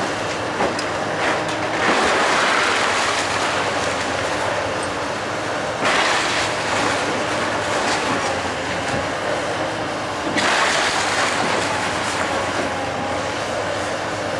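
Komatsu 360 tracked excavator's diesel engine running under load as its arm tears into a wooden house, with continuous crunching and cracking of splintering wood and falling debris. Louder crashes come about two, six and ten seconds in.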